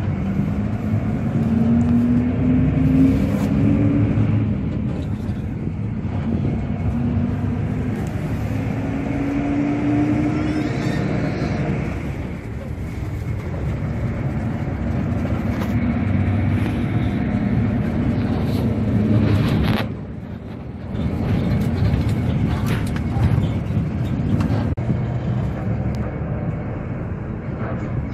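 Coach engine and road noise inside the passenger cabin of a moving bus, the engine note rising several times as it pulls through the gears, with a brief lull about twenty seconds in.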